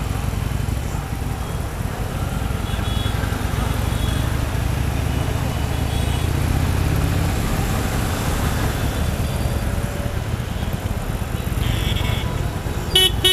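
Harley-Davidson Sportster 883's air-cooled V-twin engine running at low road speed, a steady low rumble that rises a little in pitch midway as it pulls ahead. Short high-pitched sounds come from the surrounding traffic now and then, with a louder one near the end.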